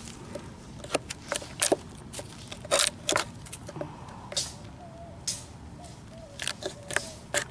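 Scattered wooden knocks and short scraping strokes from a chisel clearing waste out of a dado notch in a pressure-treated board.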